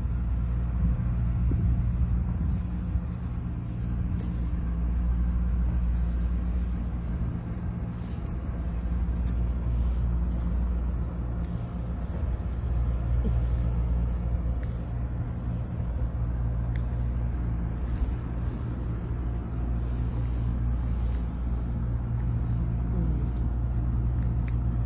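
Steady low rumble of idling vehicle engines, mostly semi trucks, with a constant low hum.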